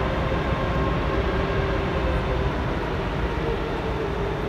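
Jet airliner's engines running steadily while the aircraft stands on the runway: a constant low rush with a faint steady whine.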